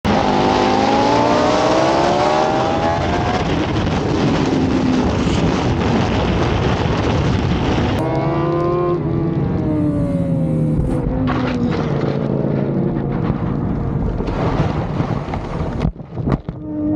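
Honda Fireblade superbike engine at racing speed, heard onboard under heavy wind noise, its note falling and rising as the bike brakes and accelerates through the corners. Near the end the sound cuts out abruptly several times, with a few sharp knocks.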